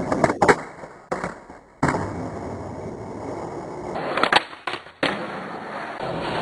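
Skateboard wheels rolling on concrete, with sharp clacks of the board about half a second in and again around four seconds in. The sound cuts off abruptly several times.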